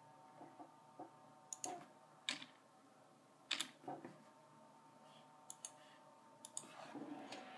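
Steady hum of computer fans with a few fixed tones, broken by scattered sharp clicks, some in quick pairs. Near the end the fan noise rises into a louder, steady hiss as the Radeon R9 280X graphics card's fan speeds up.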